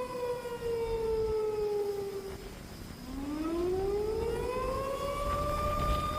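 Outdoor tornado warning siren wailing. Its pitch falls and fades about two and a half seconds in, then climbs again from about three seconds and holds steady near the end.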